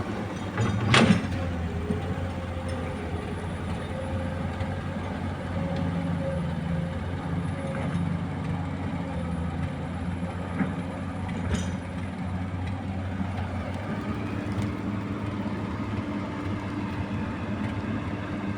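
Komatsu PC200 hydraulic excavator working, its diesel engine running steadily with a low hum. There is a loud sharp knock about a second in and a weaker one about two-thirds of the way through, and the engine note shifts upward near the end.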